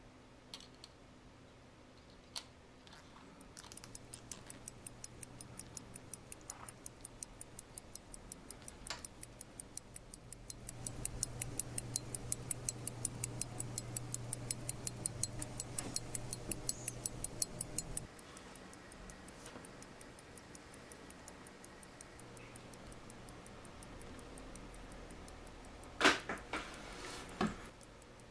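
Mechanical watch movement (Rolex calibre 1556) ticking with its balance running: a fast, even train of ticks that sets in a few seconds in, grows louder, and stops about two-thirds of the way through. A few sharp clicks near the end.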